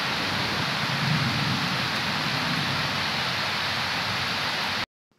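Heavy rain pouring down steadily, an even hiss that cuts off abruptly near the end.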